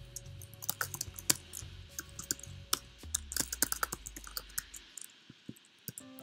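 Typing on a computer keyboard: a fast, irregular run of key clicks that thins out near the end.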